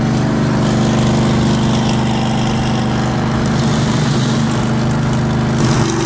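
Cruiser-style motorcycle engine running at a steady highway speed in the next lane, a steady low engine note over wind and road noise.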